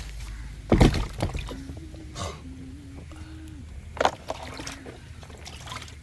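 Water sloshing, broken by two loud knocks or splashes about three seconds apart, with a person faintly humming between them.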